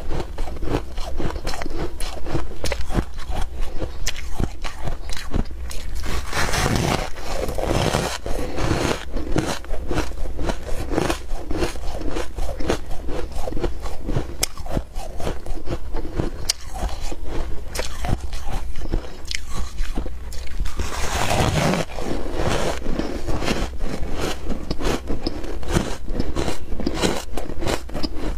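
Close-up crunching of ice or freezer frost being bitten and chewed: a dense run of rapid, crisp crunches. A steady low hum runs underneath, and there are two brief louder swells of noise.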